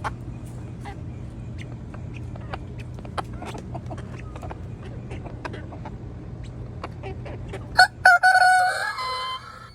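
Chickens clucking with scattered short calls, then, about eight seconds in, a rooster crows loudly once for about a second and a half.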